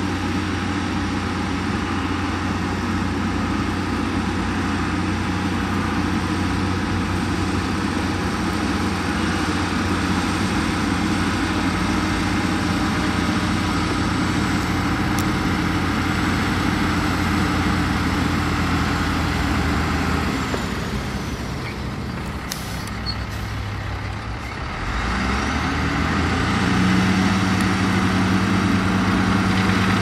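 Heavy construction machine's engine running steadily, easing off about twenty seconds in and picking up again a few seconds later, with a higher steady note near the end.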